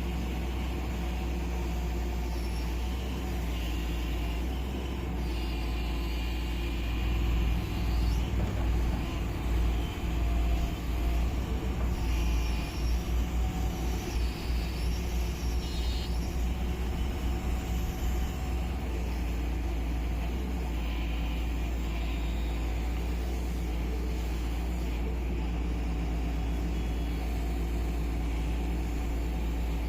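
Excavator diesel engine running steadily, with a louder, uneven low rumble through the middle stretch as the machine works.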